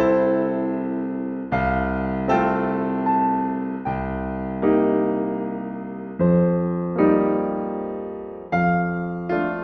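Solo piano playing slow, gentle chords. Each chord is struck and left to ring and fade before the next, roughly one to two a second.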